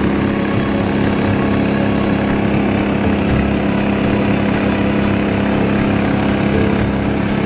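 A motorboat's small engine running at a steady speed, a continuous drone that does not change.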